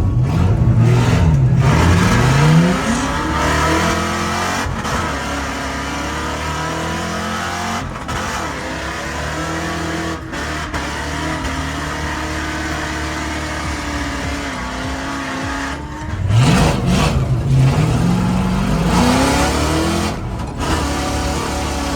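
A drift car's engine revving hard, its pitch climbing and falling again and again as the driver works the throttle, with a sharp run up in revs right at the start and again about 16 seconds in.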